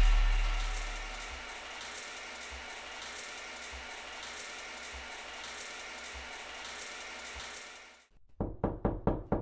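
Music fades out, leaving a sink tap running steadily; the water shuts off about eight seconds in. Then come about five quick knocks, like knocking on a door.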